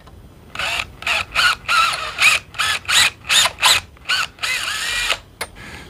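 Cordless drill boring out the rivet hole in a steel Conibear trap trigger held in a vise, enlarging it to take a number 6 screw. It runs in quick short pulses, about four a second, each rising and falling in pitch, then in one longer steady run near the end.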